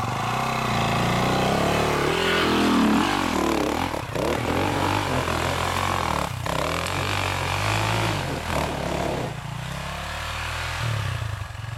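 Off-road dirt bike engine revving hard on a steep hill climb, the pitch rising and falling with the throttle and two brief cuts partway through. It turns quieter in the last couple of seconds as the bike bogs down just short of the top.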